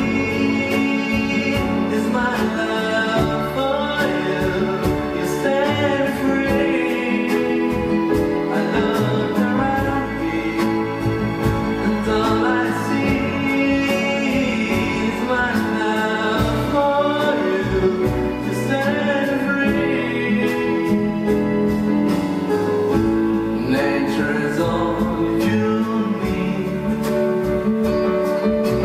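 Live pop ballad: a male singer's voice over keyboard, strings and drums, with cymbals keeping a steady beat.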